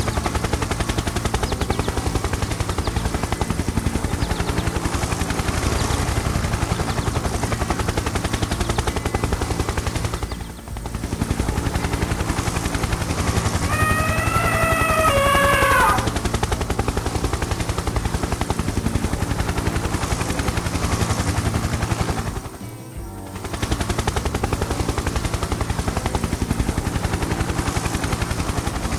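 A steady, rapid mechanical rattle like a running engine, which breaks off briefly twice. About halfway through, a short pitched call falls in pitch.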